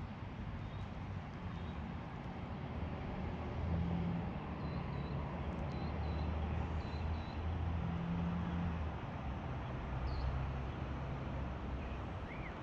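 Low, steady rumble of distant motor traffic that swells slightly through the middle, with a few short, high bird chirps.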